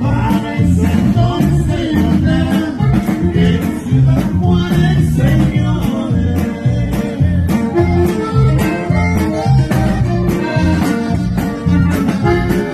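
A live norteño band playing: bajo sexto and drums with a steady beat, accordion and some singing.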